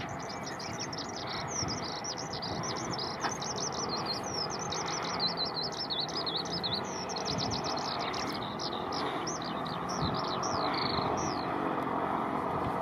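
A songbird singing a long, unbroken run of quick high chirps, which stops about eleven seconds in, over a steady background rush of noise.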